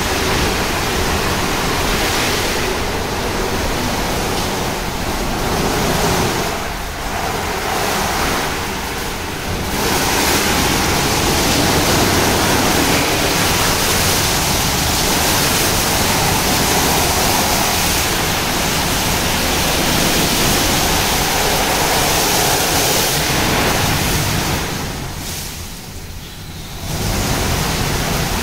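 Tammermatic T700 rollover car wash in its brush wash stage: rotating wash brushes swishing over the car amid spraying water, a dense steady wash of noise. It eases off briefly a few times, longest for about two seconds near the end.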